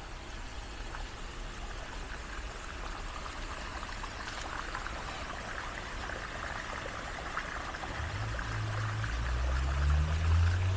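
Water running steadily, trickling and splashing. A low drone comes in about eight seconds in and is loudest near the end.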